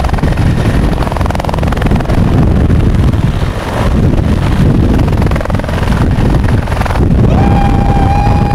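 Bell UH-1H fire helicopter hovering low over water while its snorkel fills the tank: steady rotor and turbine noise, with the rotor wash buffeting the microphone. About seven seconds in, a steady high tone starts and holds.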